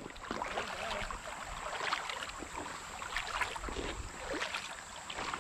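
Shallow creek water splashing and sloshing in many small, irregular splashes.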